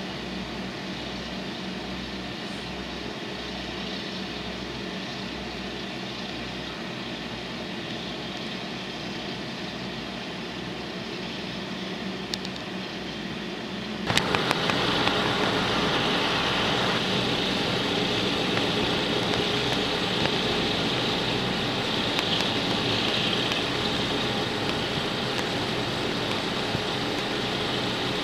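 Steady hum of an idling car engine and fan, with a slow, regular low throb underneath. About halfway through it abruptly gets louder and hissier.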